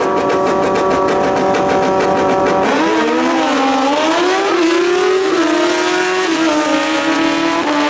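Two Real Street drag-racing motorcycles held at a steady high rpm on the starting line, with a fast, even crackle. About three seconds in they launch: the engines rise in pitch and drop back with quick upshifts as they accelerate down the track.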